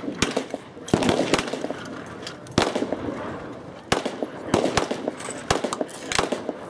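Gunfire from firearms on a shooting range: about seven sharp shots at irregular intervals, some in quick pairs, each with a short echo.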